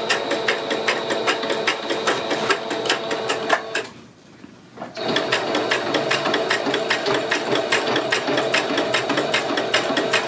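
Electric sewing machine stitching cloth, a rapid even clatter of stitches over a steady motor whine. It stops for about a second around four seconds in, then runs on.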